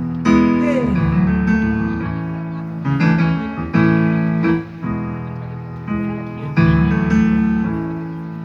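Solo piano playing slow sustained chords as a song introduction, a new chord struck every second or so and left ringing down before the next.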